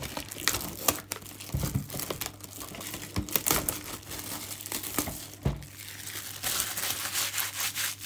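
Clear plastic shrink wrap being torn and peeled off a cardboard trading-card box, crinkling and crackling, with a few soft thumps as the box is handled and the crinkling busiest near the end.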